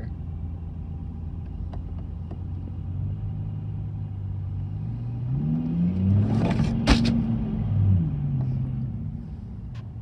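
VW Touareg's V10 TDI diesel, heard from inside the cabin, accelerating hard under load: the engine note climbs steadily from about three seconds in, holds, then drops back near the end as the pull eases off. A sharp click sounds at the peak of the pull.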